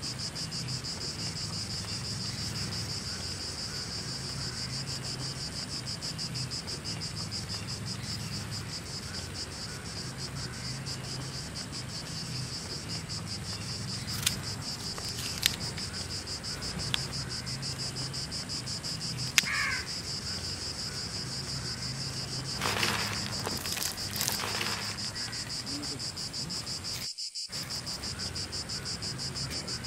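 Steady, rapidly pulsing chorus of crickets chirring, with a low pulsing drone beneath. A few sharp clicks and some crunching come from a knife cutting fruit partway through.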